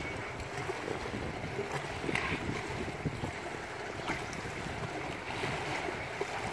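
Pool water splashing and rushing as a dolphin tows swimmers holding its fin through the water, a steady churning noise.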